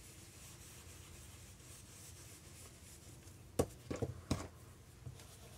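A blending brush rubbing ink onto watercolour paper makes a faint, soft scratching. About three and a half seconds in come three sharp knocks in quick succession as the brush is set down on the work surface.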